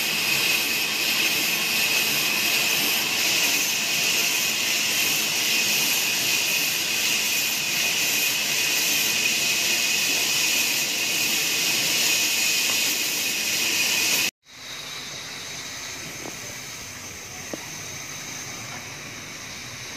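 Large band saw running and cutting wood: a loud, steady hiss with a high whine. It cuts off suddenly about fourteen seconds in, and a quieter steady noise with faint high tones follows.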